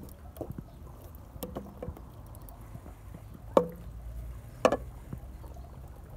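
A wooden spoon stirs a boiling cassava-leaf stew in a large aluminium pot, with soft sloshing and light taps. A little past halfway there are two sharp knocks of the spoon against the pot, about a second apart, each with a brief ring.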